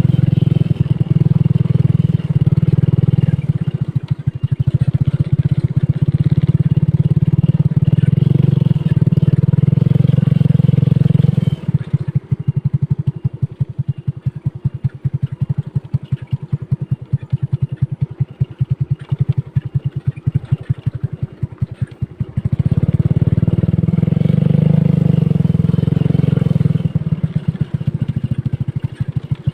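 Motorcycle engine running under way. It eases off for about ten seconds in the middle into a quieter, rapid putter, then picks up again.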